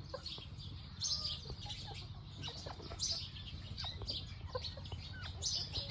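Bantam chickens clucking and chirping softly now and then, over a steady low hum.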